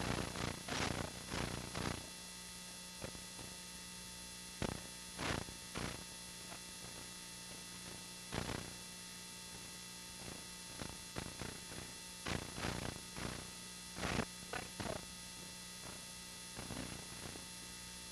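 Steady electrical mains hum on an old home-video soundtrack, a buzz of several even tones, with short scattered bursts of noise rising above it every second or two.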